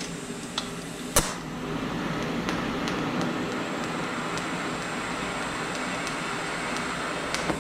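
TIG welding arc tacking metal with filler rod: a sharp crack about a second in as the arc strikes, then a steady hiss with faint scattered ticks, cut off with a click near the end.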